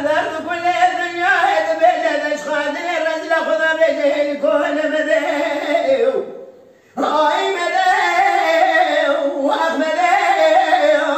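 A man singing dengbêj, Kurdish unaccompanied sung storytelling, in long wavering vocal lines. He breaks off briefly about six seconds in, then resumes.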